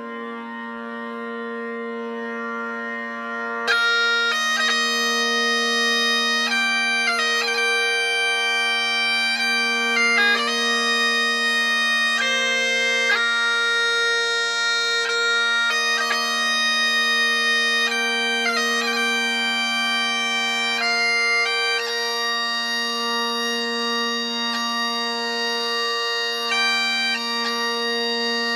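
Great Highland bagpipe playing a slow tune. The steady drones strike up first, and the chanter melody comes in about four seconds in.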